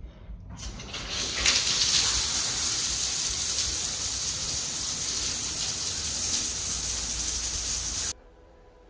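Spa rain shower running on its tropical-rain setting: overhead shower heads pouring water as a steady, loud hiss. It builds up over about the first second and a half and cuts off suddenly near the end.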